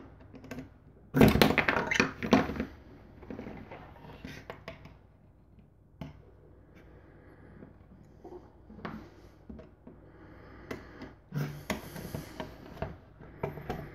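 Small parts being handled and assembled: scattered clicks and knocks of 3D-printed plastic pieces, screws and a screwdriver as feet are screwed onto a plastic box, with louder stretches of clatter about a second in and again near the end.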